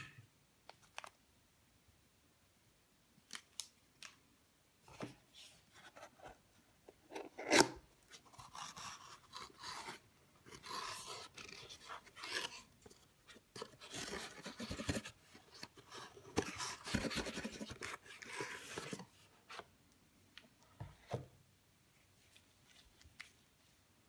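Cardboard and paper packaging handled by gloved hands: a few light taps, a sharp knock about seven seconds in, then several seconds of scraping and rustling as box parts slide and the packing is drawn out, ending in a few more taps.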